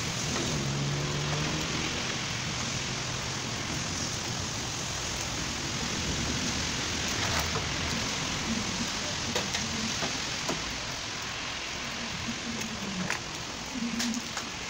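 A steady rushing hiss, with a few light clicks and knocks as parts of a front-loading washing machine are handled during reassembly.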